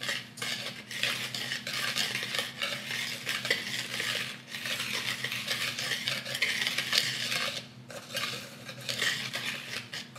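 Wire whisk stirring a dry flour mixture in a mixing bowl: a continuous scratchy brushing of the wires through the powder and against the bowl, broken by a few short pauses.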